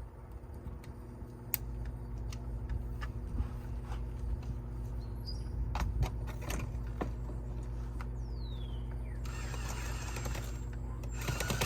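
A steady machine hum with scattered clicks, knocks and scrapes as a bird's nest is worked out of a dryer vent, and a burst of rushing noise near the end.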